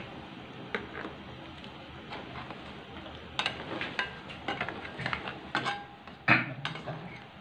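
Metal spatula stirring in a wok of crab simmering in coconut-milk gravy, with scattered clicks and knocks of metal against the pan. The knocks grow busier from about three seconds in, with one sharp knock near the end standing out.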